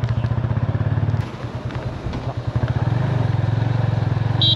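Motorcycle engine running with a low, steady firing pulse. It drops back about a second in and comes up louder again near the three-second mark.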